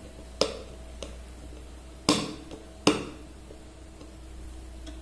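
Sharp clicks of a screwdriver turning the screws of a motor driver board's screw terminal, loosening them, three times: about half a second in, at two seconds and just before three seconds.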